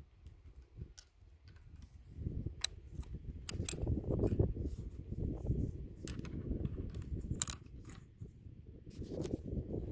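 Scattered sharp metallic clicks and clinks from handling an M39 Mosin-Nagant bolt-action rifle while it is loaded, over a low rumble of handling and wind. The sharpest click comes about seven and a half seconds in.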